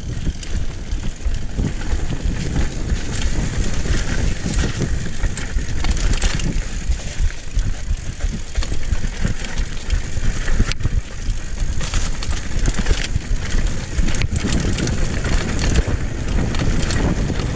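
Mountain bike ridden down a dirt singletrack, heard from a camera on the rider: wind buffeting the microphone over tyres rumbling on dirt and the bike rattling over the rough trail. Two sharp knocks, about three and a half seconds apart, stand out in the second half.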